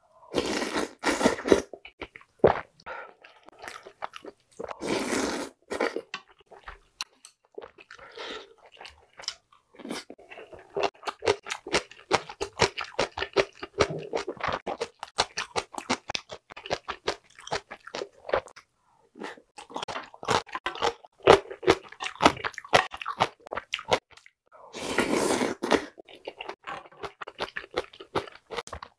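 Close-miked eating of galbitang soup with glass noodles and rice. There are wet slurps from a ladle near the start, about five seconds in, and again near the end. Between them come steady chewing and crunching of napa cabbage kimchi.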